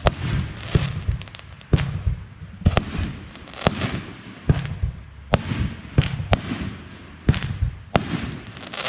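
Fireworks bursting in quick succession, about one sharp bang a second, each bang trailing off into a hissing crackle.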